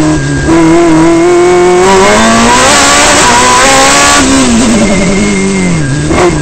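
Open-cockpit race car's engine at high revs, heard from on board. The revs climb over the first few seconds, then fall off from about four seconds in.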